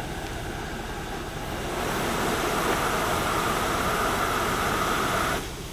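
Steady rushing of a fire hose line flowing about 200 gallons a minute through a smooth-bore nozzle, with the fire engine's pump running. It swells about two seconds in, then drops off abruptly shortly before the end.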